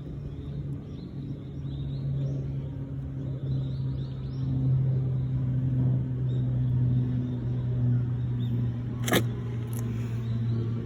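Honda CB125R's single-cylinder engine running steadily under way, its pitch shifting slightly, with a sharp click about nine seconds in.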